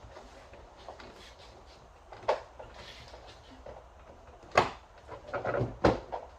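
Plastic door trim panel of a 2011 GMC Terrain being pressed and knocked onto the door so its retaining clips snap in: a knock about two seconds in, a sharper one near the middle, and a quick cluster of knocks and rattles shortly after.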